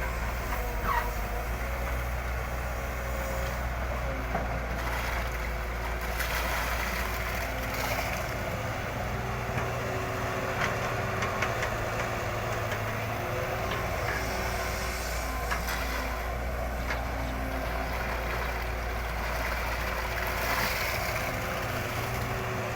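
Small electric motors of a radio-controlled excavator running with a steady hum, with whining tones that start and stop every few seconds as the controls are worked.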